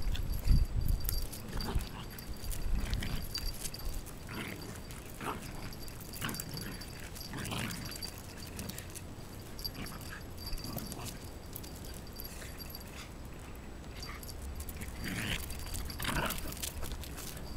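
Two Shiba Inus play-fighting, with brief dog vocalizations coming and going throughout. Low rumbling thumps sound in the first second or so.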